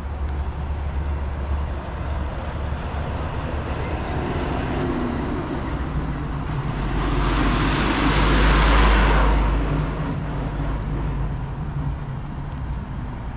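A motor vehicle passing close by, its noise swelling to a peak about eight seconds in and then fading, over a steady low traffic rumble.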